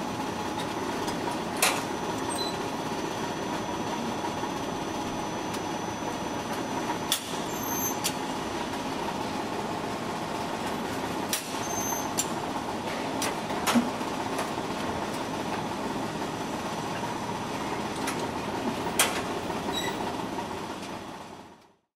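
Steady background hum and bustle of a covered market, with a few sharp clicks and clinks scattered through; it fades out near the end.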